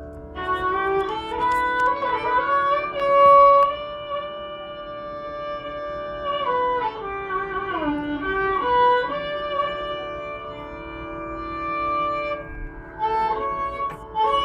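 Violin playing a slow Indian classical melody with frequent slides between notes, over a steady drone.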